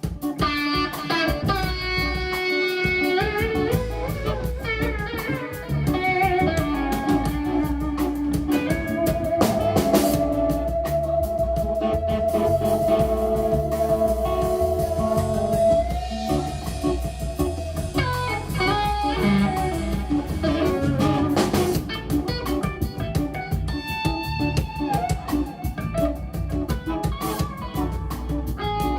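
Live instrumental rock-fusion band: lead electric guitar playing melodic runs over bass and drums, holding one long sustained note about midway through.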